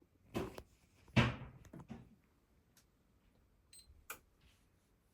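Knocks and clicks from a Miele CM6300 bean-to-cup coffee machine being operated, with a short high beep near the end of the run. No grinding follows, because the grinder's temperature sensor/fuse has blown.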